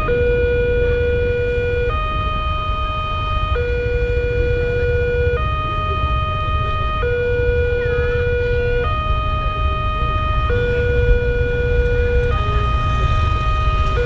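Railroad crossing's electronic warning alarm switching back and forth between two tones, each held a little under two seconds, sounding while the crossing barrier is down for an approaching train.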